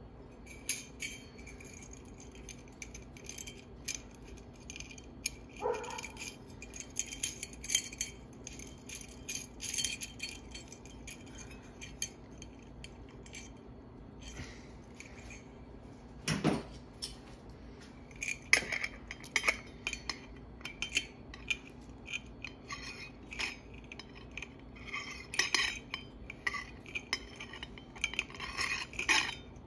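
Light metallic clinks and clicks of a ceiling fan's metal switch housing cap being handled and fitted, irregular throughout. One louder knock comes a little past halfway.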